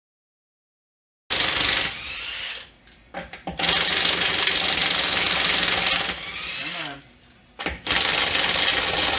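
Cordless impact wrench hammering on wheel lug nuts in three long bursts, each easing into a softer run as the nut spins free. The battery is almost dead and barely breaks the nuts loose.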